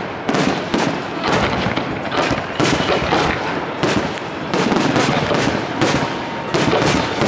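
Fireworks display: aerial shells bursting in quick succession, a dense run of sharp bangs and crackle that never lets up.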